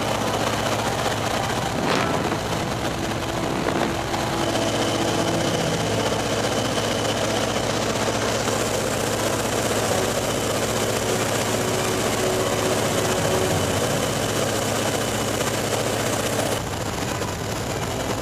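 1940 Waco biplane's engine and propeller running steadily in cruise, heard from the open cockpit with a steady rush of wind. The sound drops slightly in level near the end.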